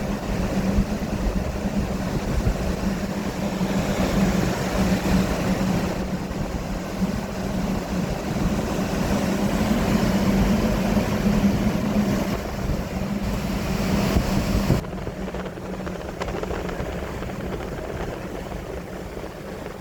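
Strong wind blowing and buffeting, heard as a loud, fluctuating rush over a steady low hum. The sound drops abruptly about fifteen seconds in and carries on quieter.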